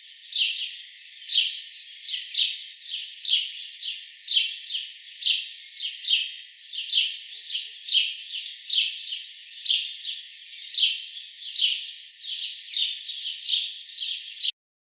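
A bird chirping over and over, short downward-sweeping chirps at about two a second, stopping abruptly near the end.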